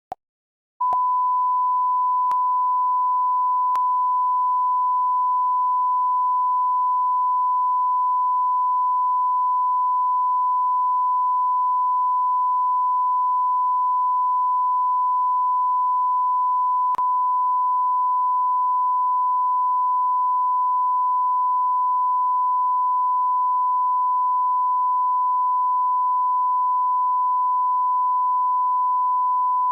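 Television test tone of the kind played with colour bars while a station is off the air: one steady, unbroken pitch that comes on with a click about a second in. A faint click is heard about halfway through.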